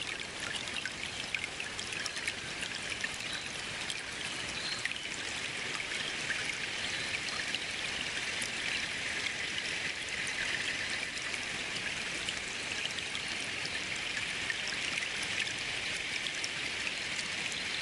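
Running water flowing steadily, an even splashing rush with small droplet ticks, growing slightly louder about six seconds in.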